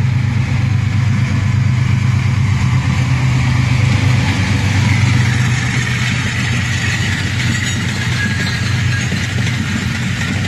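GEU-20 (GE U20C) diesel-electric locomotive's engine pulling a passenger train as it accelerates past, a loud steady low engine drone. It is loudest about five seconds in, easing a little as the coaches roll by behind it.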